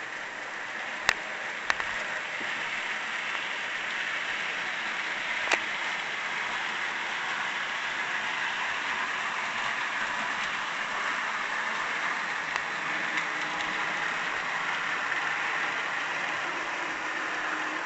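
Bachmann Union Pacific SD40-2 model locomotive and its train running on the track: a steady rushing hum of motor and wheels on rail, with a few sharp clicks in the first six seconds.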